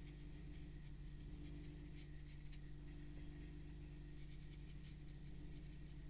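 Faint, irregular scratchy strokes of a paintbrush on watercolor paper, over a steady low hum.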